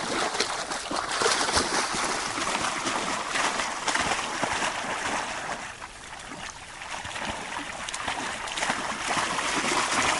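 Labrador retriever puppies splashing and sloshing through shallow water, a steady run of small splashes that eases off briefly about six seconds in.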